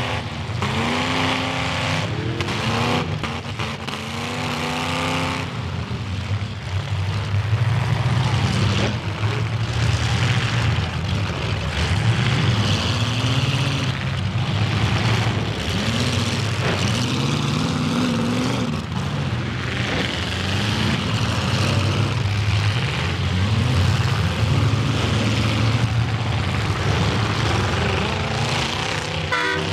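Several demolition derby cars' engines running and revving hard together, rising and falling in pitch, with occasional knocks and crunches as the cars ram each other. A horn starts sounding at the very end.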